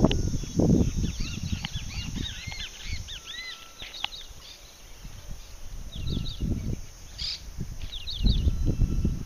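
Many birds singing in quick, arching chirps and whistles. Low rumbles of wind on the microphone come and go, loudest near the start and near the end.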